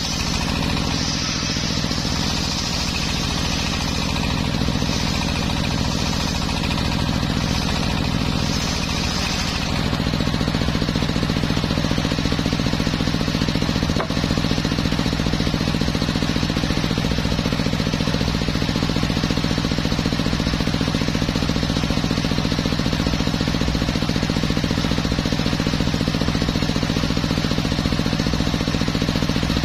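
Homemade circular sawmill running steadily while sawing teak: a constant motor-and-blade drone, with a high hiss of the cut over it that stops abruptly about ten seconds in. After that the machine keeps running on its own.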